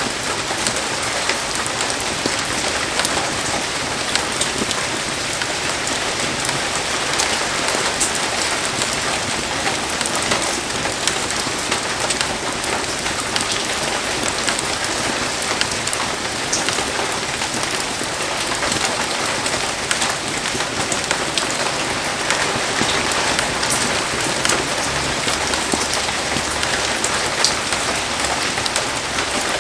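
Heavy rain falling steadily, a dense even hiss with many small ticks of drops striking nearby surfaces.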